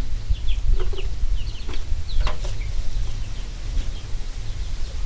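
Chickens clucking and chirping in short, scattered calls over a steady low rumble.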